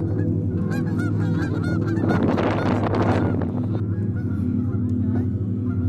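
Geese honking, many short calls in quick succession, over a steady low drone.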